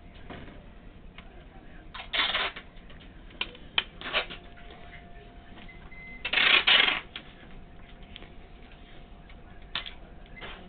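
Packing tape being pulled off its roll to seal a cardboard box: two loud tearing pulls of about half a second each, a couple of seconds in and again about six seconds in, with light clicks and knocks of the box and tape roll being handled between them.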